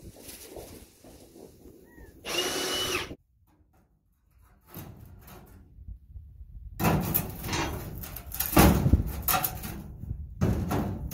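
Tools working the sheet-metal wheel well of a steel floor frame: a loud run of irregular scraping, clanking and knocks starting about seven seconds in. A short loud burst comes about two seconds in.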